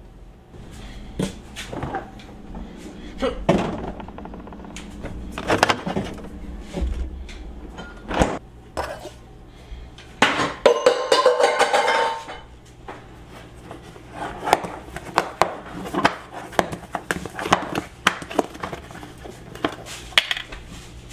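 Kitchen items being handled: boxes, jars and a coffee can moved about on pantry shelves and the counter, with scattered knocks and clinks. About ten seconds in there is a louder scraping rustle lasting a second or two.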